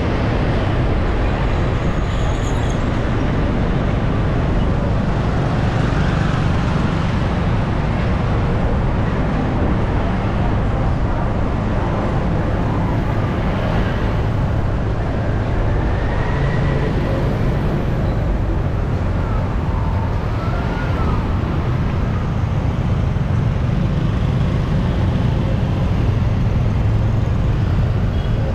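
Steady city street traffic noise: a continuous low rumble of passing engines.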